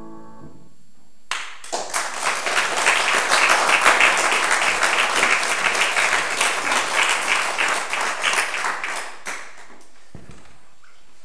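A grand piano's final chord dies away. About a second later an audience breaks into applause that lasts about eight seconds, then thins and stops.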